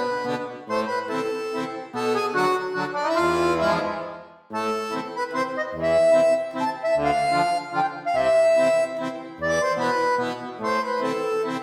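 Background music led by accordion: a bouncy, quick run of notes, with a short break about four seconds in.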